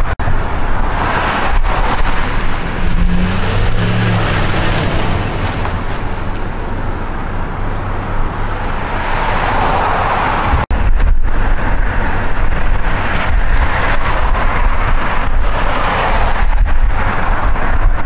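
Strong, gusty wind blowing across the microphone: a loud, deep rumble that swells and eases with each gust, with a car passing on the road around the middle.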